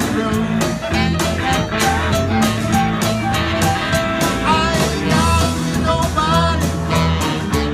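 Live band playing a blues-rock song: drums keeping a steady beat with cymbals, bass and electric guitar, with a lead vocal over them.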